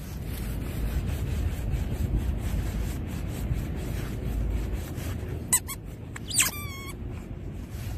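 Labradoodle digging in sandy soil, its paws scraping steadily. In the second half come a few short high-pitched squeaks from the excited dog, the last a wavering whine.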